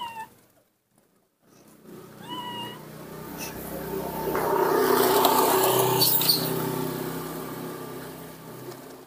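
Baby macaque giving two short, high, mewing cries, one at the very start and another about two seconds in. Then a passing vehicle swells up, loudest around five seconds in, and fades away.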